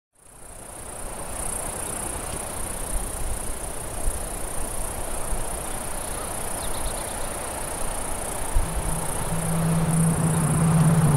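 Atmospheric intro of a black metal album track fading in: a steady high insect-like chirring over a rushing wind-like hiss. About nine seconds in, a low held note enters and grows as the music begins.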